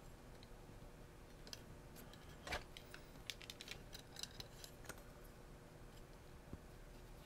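Faint clicks and taps of small plastic kit parts being handled, with one sharper click about two and a half seconds in and a quick run of light clicks after it.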